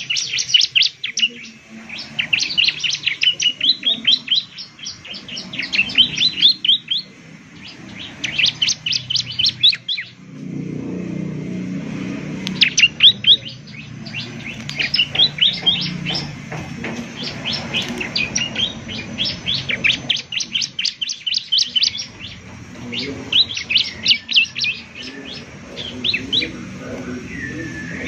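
Bar-winged prinia (ciblek) singing: rapid runs of sharp, high chirps in phrases of one to two seconds with short pauses between. A low rumble sits underneath in the middle stretch.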